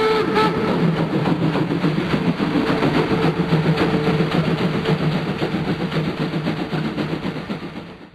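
Steam locomotive: its steam whistle ends within the first second, then the engine works on with rapid, regular exhaust chuffs and a steady low running hum, fading out at the end.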